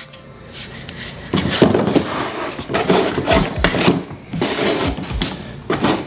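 Irregular knocks, clicks and clatter of hard plastic and metal parts being handled, starting about a second in.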